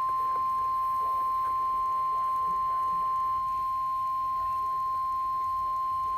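Emergency Alert System attention signal: a single steady tone near 1 kHz, held unbroken at an even level. This is the 1050 Hz warning alarm tone used by NOAA Weather Radio before a severe thunderstorm warning is read.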